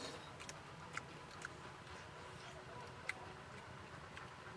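Quiet eating sounds: about half a dozen soft, sharp clicks of bamboo chopsticks against bamboo, scattered over a faint steady background.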